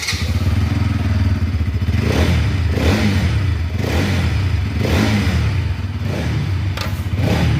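Bajaj Pulsar NS200's single-cylinder engine idling through its exhaust and being blipped repeatedly, the revs rising and falling about once a second.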